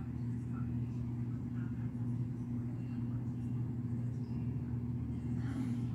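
Steady low hum of a running motor, a constant drone with no rise or fall.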